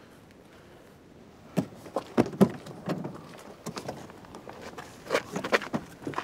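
Irregular knocks and clicks of people handling a car's door and body, the loudest a little over two seconds in.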